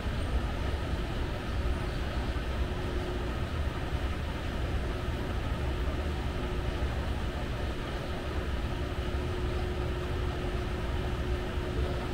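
Moving walkway running with a steady low mechanical rumble and a faint hum that comes and goes.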